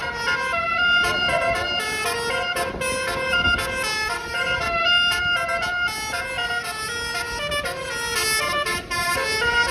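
Basuri telolet bus horn, a multi-note musical air horn, playing a tune of changing notes without a break.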